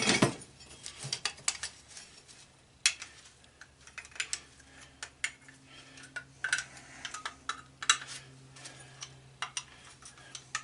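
Scrap metal parts clinking and rattling as they are handled and worked with pliers: a string of irregular sharp clinks and taps.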